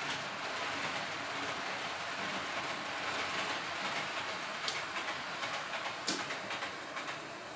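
H0-scale model train running on the layout's track: a steady rolling rumble with two sharp clicks about four and a half and six seconds in, getting quieter near the end.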